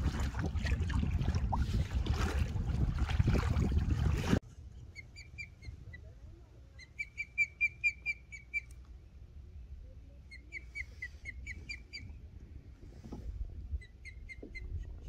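For about four seconds, wind buffets the microphone over lapping lake water from a fishing kayak, then cuts off abruptly. After that an osprey gives several series of short, high, whistled chirps, each run of rapid notes lasting one to two seconds.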